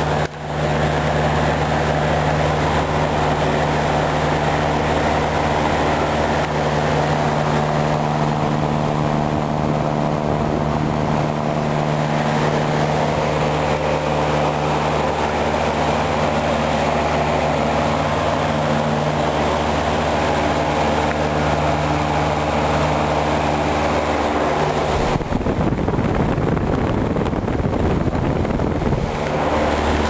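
1950s Lasko box fan running on a replacement GE 1/6 hp motor: a steady motor hum under the rush of air from the blades. About 25 seconds in, the hum drops under a rougher rush of air for about four seconds, then returns.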